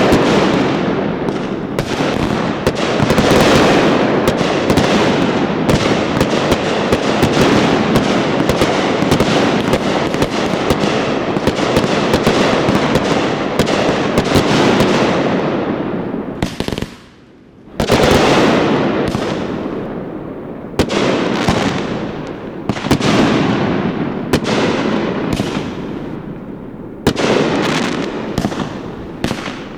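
Fireworks display going off in a dense barrage of rapid bangs and crackling bursts. The bangs thin out briefly about halfway through, then the barrage picks up again.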